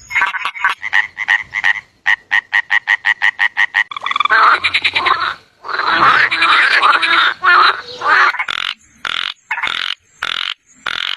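Frogs croaking: a fast run of evenly spaced pulsed calls, about six a second, then after about four seconds a denser chorus of overlapping croaks that breaks into separate shorter calls near the end.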